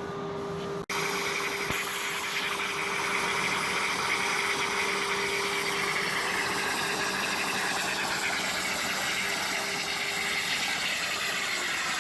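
CNC plasma cutter's torch cutting sheet metal: a steady hiss, with a low hum under it that stops near the end. It starts abruptly after a brief dropout about a second in.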